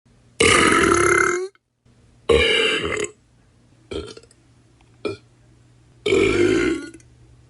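A string of five separate burps: three long, drawn-out ones and two short, quick ones around the middle. A faint low hum sits under the later ones.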